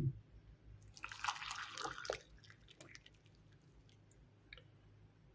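A short thump, then about a second in a brief spell of hot water splashing in a cup, followed by a few faint clicks.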